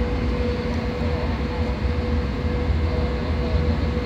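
KZ4AT electric locomotive humming steadily at the platform: a constant mid-pitched drone over a deep low rumble.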